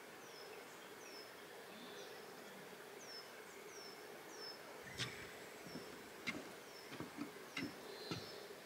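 Faint outdoor ambience: a bird repeating a short, high, downward-sweeping chirp every half second to a second over a steady hiss, with a few light knocks in the second half.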